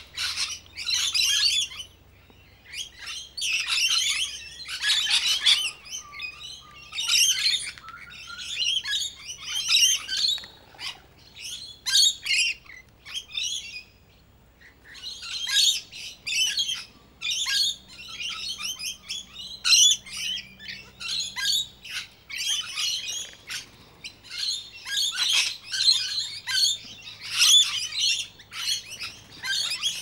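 A feeding flock of lorikeets calling in rapid, overlapping chattering bursts, with brief lulls about two seconds and fourteen seconds in.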